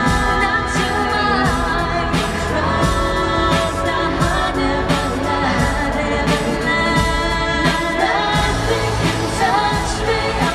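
Pop song performed live: female voices singing the melody over piano and a steady drum beat.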